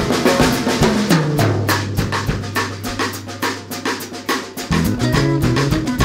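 Background music with a steady drum-kit beat over a bass line.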